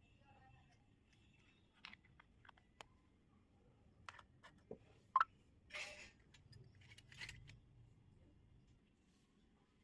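Light clicks and taps of small miniature toy kitchen pieces being handled and set down, with one sharper click about five seconds in and a couple of brief rustling scrapes.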